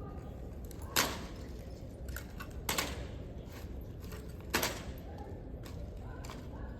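Three sharp knocks about two seconds apart, with a few fainter clicks between them, over a low steady hum.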